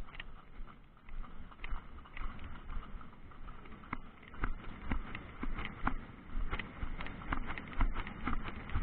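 Hooves of a ridden horse striking the ground: a string of uneven knocks, coming about two a second toward the end.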